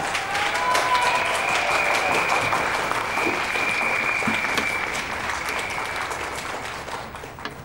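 Audience applauding and cheering, with a long high-pitched call over the clapping, dying down near the end.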